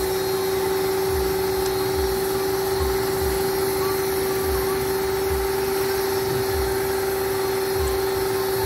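A motor-driven machine running steadily, with a constant hum and a low throb repeating a little more than once a second.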